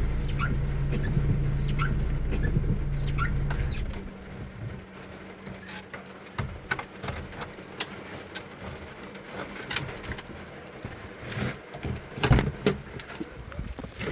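A vehicle engine idling, then switched off about four seconds in. After it stops come scattered clicks and knocks, with short repeated chirps throughout.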